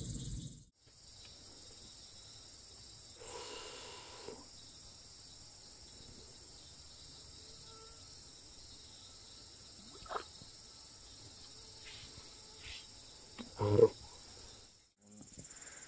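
Night chorus of crickets and other insects, a steady high-pitched trilling, with a faint knock partway through and a short, louder sound near the end.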